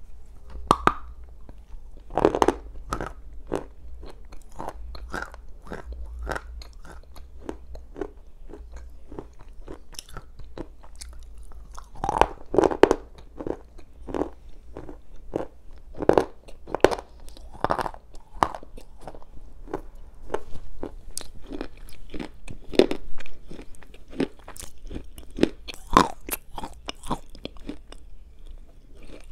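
Black slate edible clay bar being bitten and chewed close to a clip-on microphone: a dense run of sharp crunches, with louder bites about two seconds in, around twelve to eighteen seconds and again near twenty-six seconds. The bar is very hard slate clay that has been softened by soaking in boiling water so that it can be crunched.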